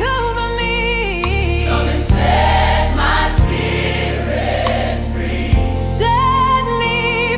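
Slow gospel worship song: wordless vocals hold long notes with vibrato over a choir and sustained bass notes, with a few soft drum hits. The held vocal notes fade out after about a second and a half and come back near the end.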